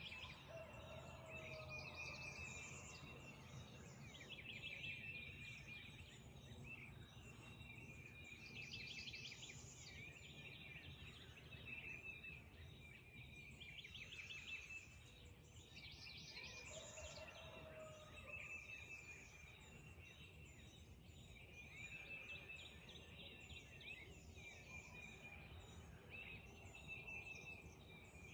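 Faint dawn birdsong: several birds singing, one repeating a quick chirping phrase every couple of seconds while others call over it, with a steady low background hum.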